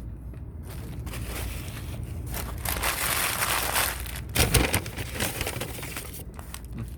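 Paper food wrapper crinkling and crumpled in the hands, with a louder bump about halfway through.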